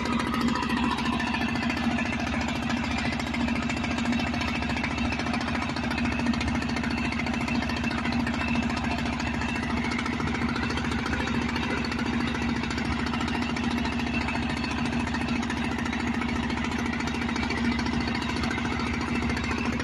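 Fishing boat's engine running steadily at a constant speed as the boat motors along.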